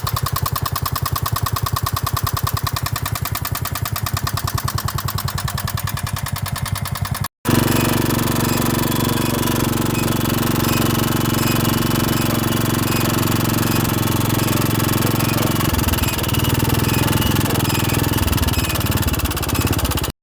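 1978 Kawasaki three-wheeler's single-cylinder engine running, with rapid, even firing pulses. After a cut about seven seconds in it runs louder and steadier, easing somewhat near the end. The throttle is not yet giving full power.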